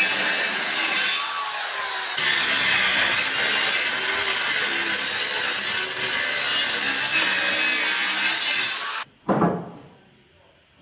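A power tool cutting or sanding wood, running steadily with a brief dip about a second in. It stops suddenly about nine seconds in, followed by a single knock.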